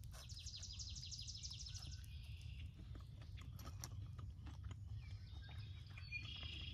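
A songbird sings a fast trill of quick, repeated down-slurred high notes for about two seconds, then a shorter chirping phrase near the end, with faint scattered clicks underneath.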